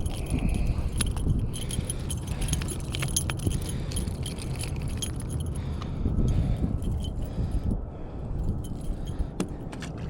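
Light metallic clinking and rattling, with many short sharp clicks over a steady low rumble.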